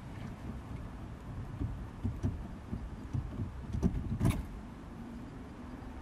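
Gear knob being twisted and pulled on a Mercedes Vito's manual gear lever: a run of irregular knocks and clicks over a low rubbing rumble, the sharpest knock about four seconds in.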